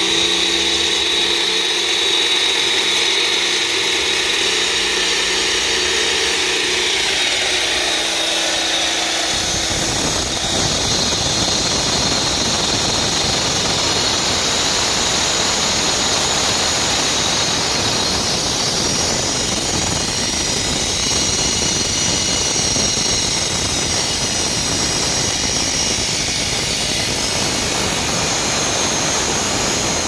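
Electric concrete cutter's diamond blade running through a wet concrete slab, a steady machine whine. About ten seconds in, the whine gives way to a denser grinding noise that carries on steadily.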